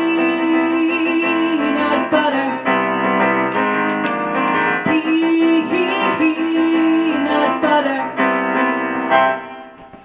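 Electronic keyboard playing the instrumental close of a song, with a melody of long held notes over chords, fading out near the end.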